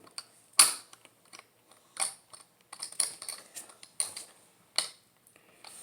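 Plastic Lego pieces clicking and rattling as they are handled and pressed together: a string of sharp clicks about once a second, the loudest about half a second in.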